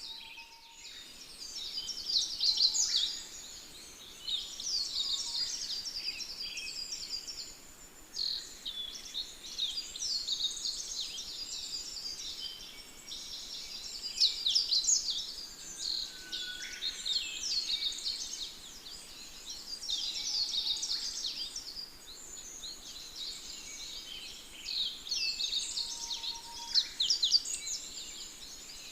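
Continuous birdsong: several small birds chirping and trilling over one another in quick, high phrases, over a faint, steady background hiss.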